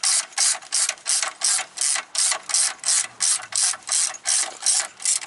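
Hand socket ratchet clicking in quick, even back-and-forth strokes, about three a second, as it runs a dogbone mount bolt down to sit flush, snugged but not yet torqued.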